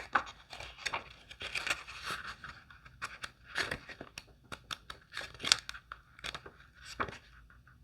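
Pages of a small paper guidebook being flipped and handled: a run of short, crisp rustles and crinkles.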